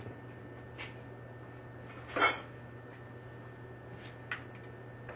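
A few light metallic clinks and clatters from copper fittings and tools being handled, the loudest about two seconds in, over a steady low hum.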